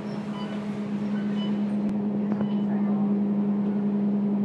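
Scania K230UB bus heard from inside the passenger cabin as it draws up at a stop, its diesel engine and drivetrain giving a steady hum that grows slightly louder over the first couple of seconds.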